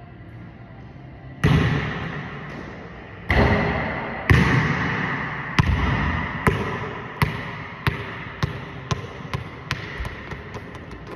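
Basketball hitting a hardwood gym floor, each impact echoing round the hall: three loud hits in the first half, then a run of bounces that come ever faster and fainter as the loose ball settles.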